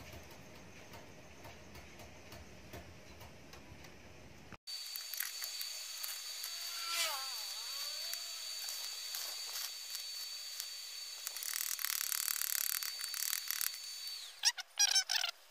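Faint background, then from about four and a half seconds in, an electric arc welder runs: a steady crackling sizzle over a constant high whine, as a fitting on a cutting torch is welded over again to seal the joint against gas leaks. The sizzle grows louder for a couple of seconds, stops at about fourteen seconds, and a few sharp knocks follow.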